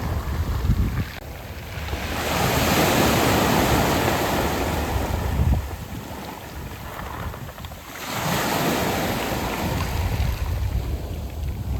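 Sea waves washing in and out over a beach of smooth round pebbles. The surf swells to a loud rush about every six seconds, with quieter lulls between.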